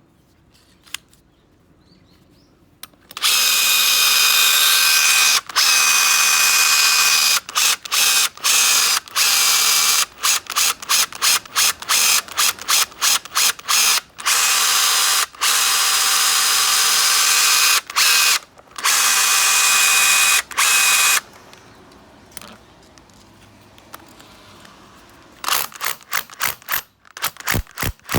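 Makita hammer drill running with its trigger held: a steady, loud motor whine that starts about three seconds in and is cut off and restarted many times in quick succession, then goes quiet near twenty-one seconds before a run of short trigger blips near the end.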